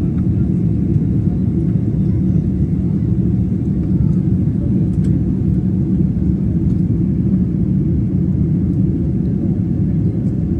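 Jet airliner cabin noise shortly after takeoff: the steady low rumble of the engines and airflow heard from a window seat, with a faint steady tone above it.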